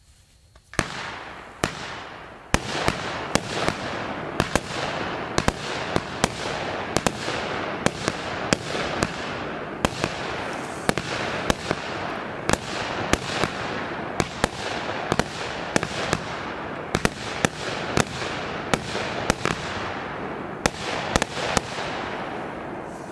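A 25-shot, 25 mm consumer fireworks battery firing in rapid succession. Sharp reports come roughly every second over a steady hiss, starting about a second in and fading near the end.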